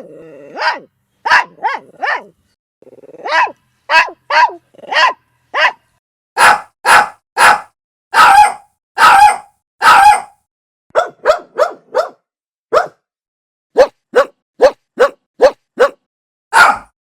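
Small dog barking: short, sharp barks in groups with brief pauses between them. Around the middle the barks are fuller and longer, and near the end they come as quicker, shorter yaps.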